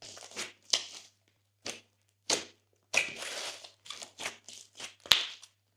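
Glossy slime pressed and squished by hand, giving a string of short crackling, popping bursts, about a dozen in all. A longer stretch comes about three seconds in, and a sharp click a little after five seconds is the loudest.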